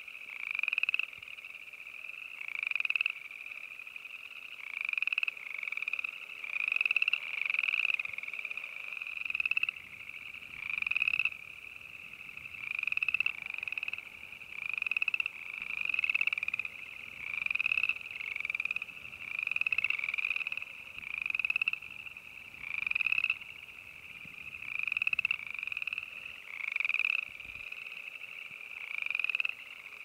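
Boreal chorus frogs calling in chorus: each call is a rapid trill about a second long that rises in pitch and swells in loudness. The calls repeat every second or two, and several frogs overlap.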